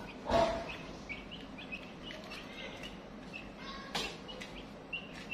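Chicks peeping: short high chirps, several a second, throughout. A loud brief knock just after the start and a sharp tap about four seconds in.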